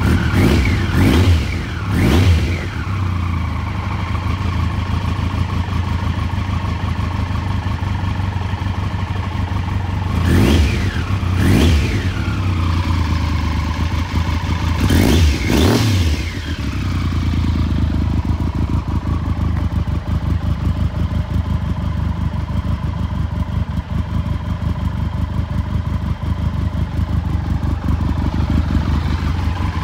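1994 Triumph Trident 750's liquid-cooled three-cylinder engine idling, still warming up after a cold start. The throttle is blipped in quick pairs three times, each rev rising sharply and falling back to idle.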